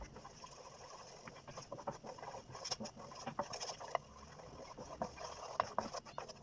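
Caramel popcorn cooking in a pot: a steady crackle with many sharp pops and clicks.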